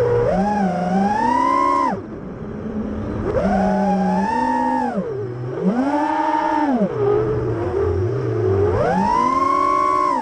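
Brushless motors and propellers of a Diatone R568 FPV quadcopter whining, rising and falling in pitch over about five throttle surges as it flips and punches through the air.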